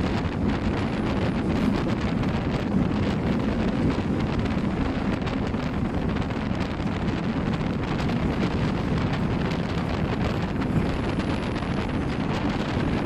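Wind rushing over the microphone of a camera held out of a moving passenger train's window, over the steady running noise of the train crossing a steel truss bridge.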